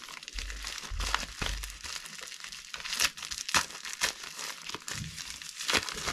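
Plastic packaging crinkling and tearing as a plastic bubble mailer is pulled open and handled, with several sharp crackles along the way.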